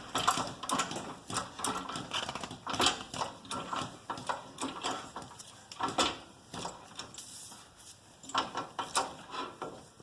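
A car jack being worked to lift the car until the wheel clears the ground: a string of irregular metallic clicks and clunks.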